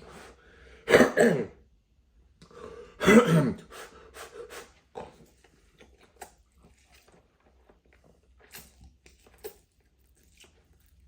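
A man coughing and clearing his throat from the chilli heat of spicy noodles: two loud coughs about a second and three seconds in, then a few smaller ones and faint mouth clicks.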